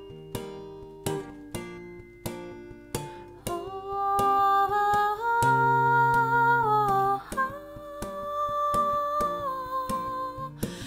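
Acoustic guitar picked in a slow pattern, then about three and a half seconds in a woman's voice joins, humming a slow wordless melody with long held notes over the guitar.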